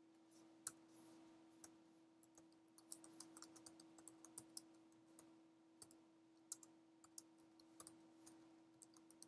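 Typing on a computer keyboard: faint, irregular key clicks, in quick runs with short pauses, over a faint steady hum.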